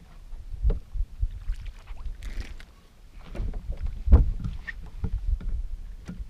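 Knocks and thuds on a bass boat's deck as a bass is landed and the angler kneels beside it, the loudest about four seconds in, over a low rumble.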